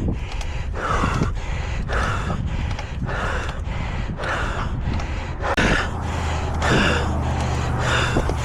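A person breathing hard and fast from exertion: loud gasping breaths in and out about once every second, some with a short catch of voice. A steady low rumble runs underneath.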